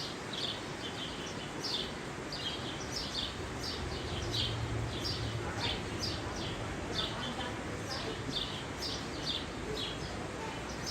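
Small birds chirping over a steady outdoor background hiss, with short high chirps repeating two or three times a second.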